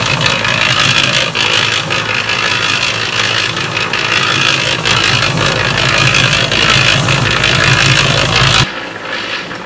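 Yardmax 1.6 cu ft electric concrete mixer running steadily, its drum tumbling a dry granular deer mineral mix over the motor's hum. The sound cuts off suddenly near the end.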